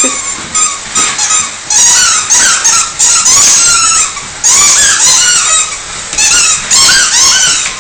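Rubber squeaky dog toy squeaking over and over as the dog chews it, in quick irregular runs of short, high squeaks.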